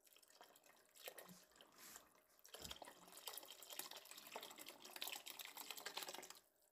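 Chicken broth poured from a measuring cup into a pot of thick gumbo: a faint, steady splashing trickle.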